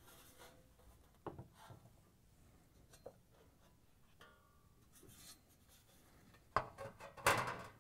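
Metal dryer blower cover being lifted off the plastic blower housing and handled: a few faint clicks and light scrapes, then louder scraping and clatter of metal about six and a half seconds in.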